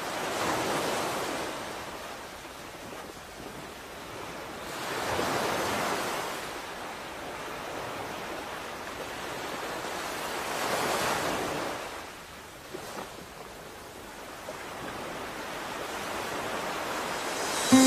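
Ocean surf: waves washing in as a rushing hiss that swells and fades three times, about five seconds apart.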